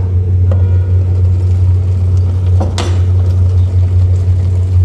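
A steady low hum with a few faint clicks and knocks, the clearest a little under three seconds in.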